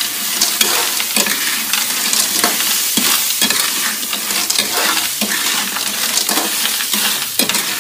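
Clams in their shells sizzling as they are stir-fried in a wok, a steady loud hiss with the metal spatula scraping the pan and the shells clattering in many irregular clicks.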